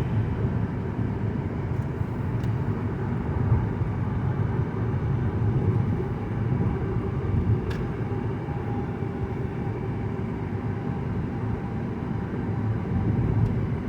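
Inside the cabin of a 2009 Mazda 5 on a freeway on-ramp: steady low engine and road rumble as the car drives up to speed.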